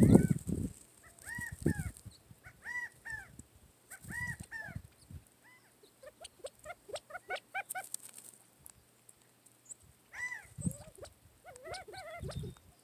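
Quail calling softly while feeding: short arched notes repeated every second or so, with a quicker run of notes around the middle, and a few soft low thumps.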